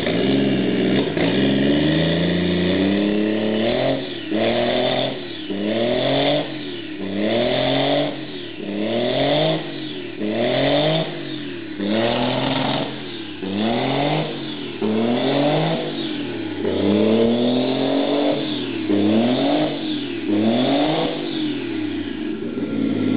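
Toyota 1JZ-GTE VVT-i twin-turbo inline-six running, held at a fast idle for the first few seconds, then blipped over and over, the revs rising and falling about once a second.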